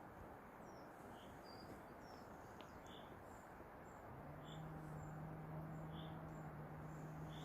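A small bird giving short high chirps, about one every second and a half, over a faint steady rushing background. A low steady hum starts about four seconds in.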